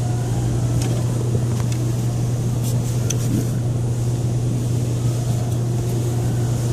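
Steady low hum with a few faint light clicks over it.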